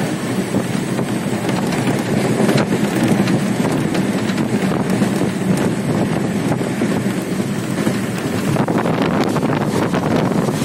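A Janshatabdi Express passenger train in motion, heard from an open carriage window: a steady rumble from the wheels and track mixed with wind blowing on the microphone, with a few faint clicks near the end.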